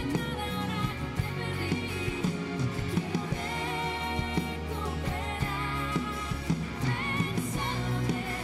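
A live pop band playing: a woman sings the lead melody over strummed acoustic guitar, with bass and a steady drum beat.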